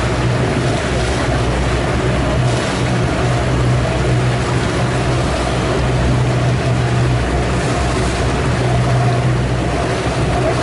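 Tour boat's engine running steadily with a low drone, over the wash of water along the hull.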